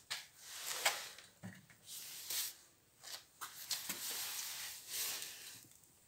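Rustling and crackling in short, irregular bouts, with a sharp click about a second in, like plastic film or a handheld phone being handled.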